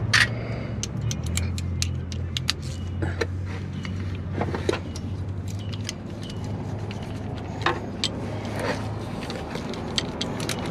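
Metal hand tools clicking and clinking in quick, irregular taps as they are handled and fitted, over a steady low hum.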